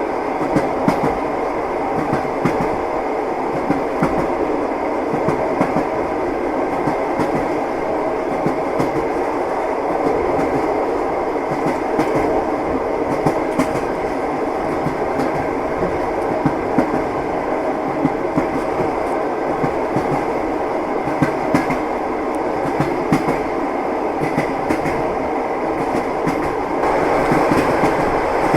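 Train wheels clacking over the rail joints, repeated knocks over a steady running rumble of a moving train. It gets louder near the end.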